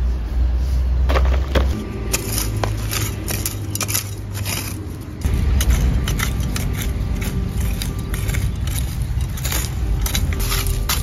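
Hands digging in dry soil and pulling at sweet-potato vines and dry leaves: many short scrapes, crackles and rustles, over a steady low rumble.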